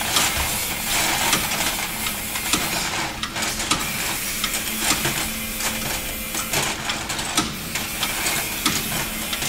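Busy, loud mechanical clatter full of rapid clicks over a faint steady hum, which cuts off suddenly at the end.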